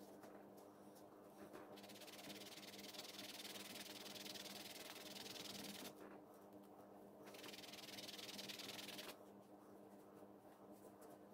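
Faint rubbing: a yellow pad is worked over a small piece of the leather sheath in two stretches of about four and two seconds. A low steady hum sits under it throughout.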